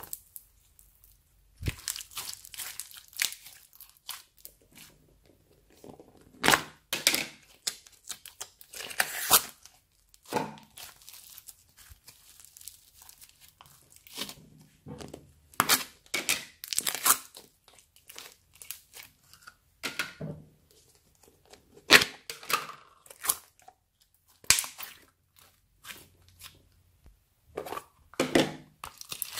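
Slime mixed with beads and bits of plastic straw being stretched, squeezed and pressed by hand, giving irregular crackling and popping in quick clusters with short pauses between.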